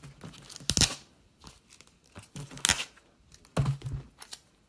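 Masking tape being peeled off the edge of a board mailer in a few short rips, the loudest about a second in and near the end.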